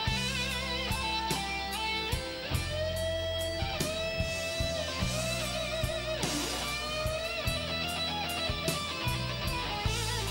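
Live slow-blues electric guitar solo on a Les Paul-type guitar: long sustained lead notes with wide vibrato and bends, over bass and drums.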